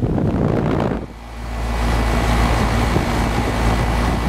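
1999 York Olympian 3.5-ton air-conditioner condensing unit running, its condenser fan and Bristol reciprocating compressor giving a steady noisy hum. After a brief dip about a second in, a heavy low rumble of moving air on the microphone takes over.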